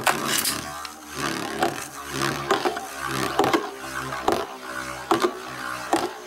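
Cyclone Herculeo 105F Beyblade on its flat tip, spinning across a plastic stadium floor: a steady whirring drone with a sharp click about once a second.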